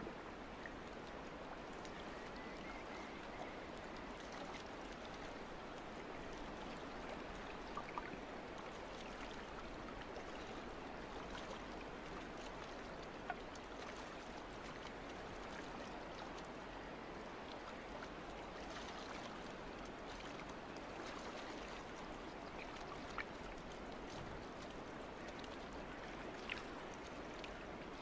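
Steady trickling, lapping water, with a few faint clicks scattered through it.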